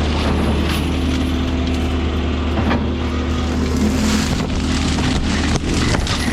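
Mini excavator's diesel engine running steadily under load while mulching or brush-cutting, with a few sharp cracks of wood and brush.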